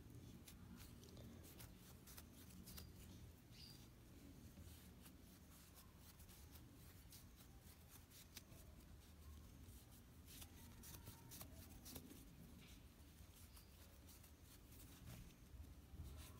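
Near silence: faint rustling and light ticks of a crochet hook pulling yarn through loops while chaining, over a low room hum.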